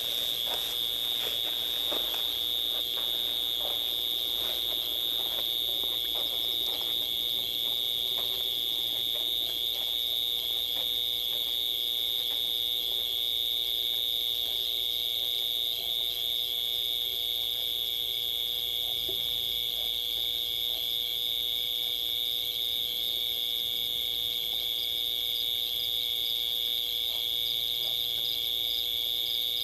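Night insect chorus: a steady, high, shrill trilling that holds unbroken throughout. Soft rustles and knocks in the first several seconds.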